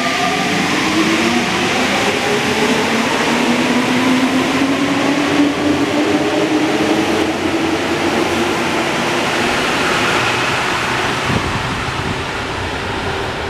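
NS-93 rubber-tyred metro train accelerating away from the platform: its traction motors whine in several rising tones over the steady running noise of the cars, the whole sound slowly fading as the train pulls away near the end.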